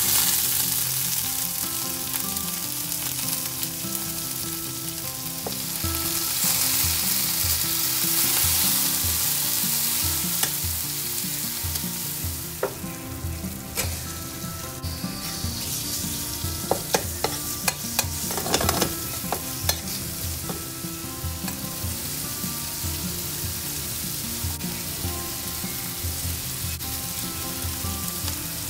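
Food sizzling in hot oil in a frying pan: cherry tomatoes and then chopped chicken hissing as they go in, loudest at the start and again a few seconds later. Midway a run of sharp clicks and taps comes from the metal spatula stirring and scraping against the pan.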